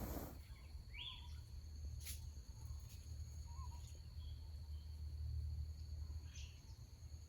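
Faint outdoor ambience: a steady high insect trill throughout, with a few short bird chirps, over a low steady rumble.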